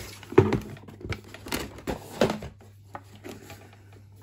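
Football boot and cardboard shoebox handled: a quick run of knocks, taps and rustles as the boot is lifted out past the card insert, settling into quiet handling after about two and a half seconds.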